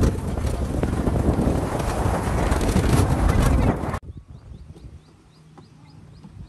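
Wind buffeting the microphone for about four seconds, then an abrupt cut to a much quieter scene where a bird gives short, high, rising chirps about three times a second.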